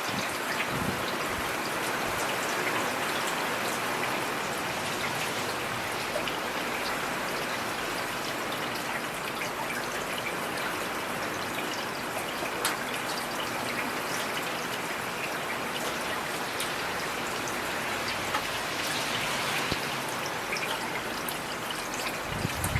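Heavy rain falling steadily, a dense even hiss with scattered sharper drop taps.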